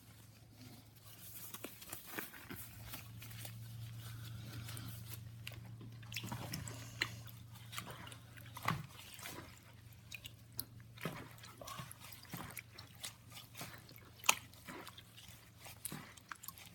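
Glue slime being mixed by gloved hands in a bowl as it starts to set: soft wet squelches with scattered, irregular sticky clicks and pops.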